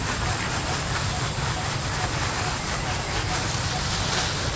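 Steady outdoor background noise: a low rumble under an even hiss, with a thin, high, steady tone running through it.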